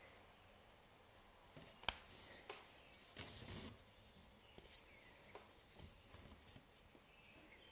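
Faint handling noises from hand weaving on a rigid heddle loom: a single sharp click about two seconds in, a brief rustle of weft yarn being drawn through the warp threads a little after three seconds, then a few light ticks.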